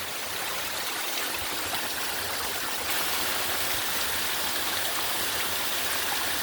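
Water from a small waterfall running in a steady rush.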